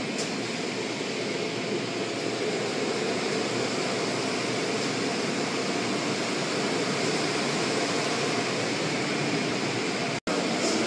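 Car wash equipment running with a steady rushing noise, broken by a split-second dropout near the end.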